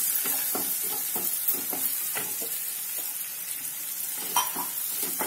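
Onions, green chillies and curry leaves sizzling in hot oil in a metal kadai, stirred with a wooden spatula that scrapes the pan in quick repeated strokes, about two or three a second. A sharper knock comes about four seconds in.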